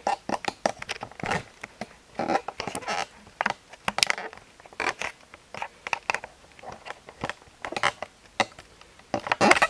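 Irregular clicks and rustles of hands handling wire and small parts, with a louder clatter of dropped loose parts near the end.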